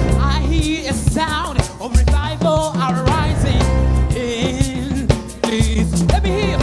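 Live gospel worship music: voices singing with vibrato over a band with drum kit and a heavy bass line.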